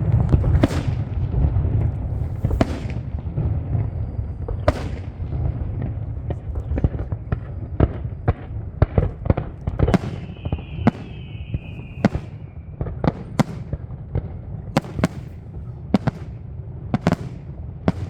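Fireworks display: a long irregular series of sharp bangs over a low rumble that is heaviest in the first few seconds. About ten seconds in, a whistling firework sounds for a few seconds, its pitch dropping slightly.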